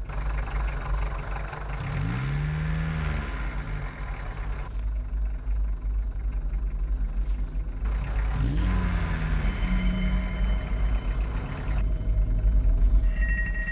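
Car engine with a steady low rumble, its note sweeping up and back down twice, about two seconds in and again about eight seconds in, and growing louder towards the end.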